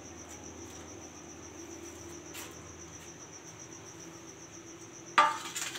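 Insect trilling steadily: one high note pulsing fast and evenly. About five seconds in, a sudden loud noisy burst lasting about half a second.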